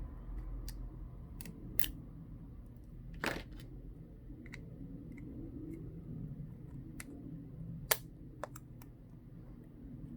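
Small clicks and taps of phone parts being handled on a workbench while protective plastic film is peeled off, with a short scrape about three seconds in and one sharper click near the end.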